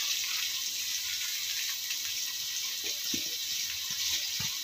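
Sliced onions frying in hot oil, a steady sizzle, with a few faint taps about three seconds in and near the end.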